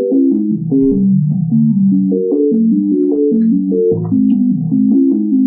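Sonified text: a clear-text English sentence encoded as a rapid run of synthesized keyboard-like harmonic chords, changing several times a second in a low-to-middle register.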